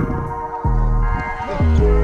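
Background music with sustained steady tones over a deep bass; the bass drops out briefly about half a second in, then returns.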